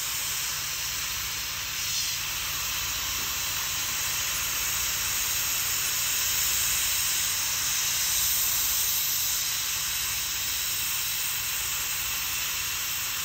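Hot-air plastic welder, fed by a low-pressure compressed-air line, blowing a steady hiss of hot air onto a plastic fan shroud to soften it, with a steady low hum underneath.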